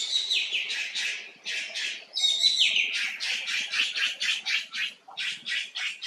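Young macaque screaming: a run of shrill, high-pitched calls. A falling squeal opens it and comes again about two seconds in, then quick pulsed cries about four a second, typical of a frightened juvenile.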